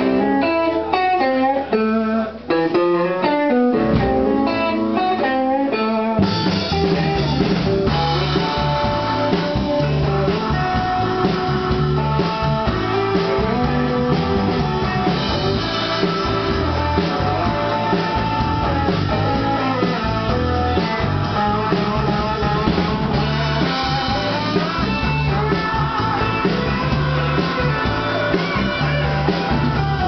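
Live band playing an instrumental passage, led by a Stratocaster-style electric guitar. The guitar plays quick runs of notes almost alone at first, and the bass, drums and keyboard come in about six seconds in, with the guitar carrying on over them.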